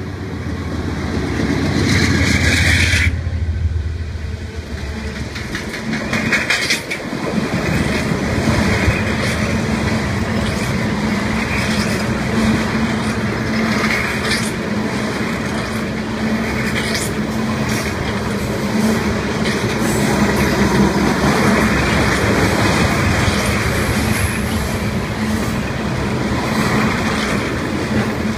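BNSF freight train passing close by. The diesel locomotives rumble loudly as they go by in the first few seconds, then a long line of tank cars rolls past with a steady wheel rumble and scattered clacks over the rail joints.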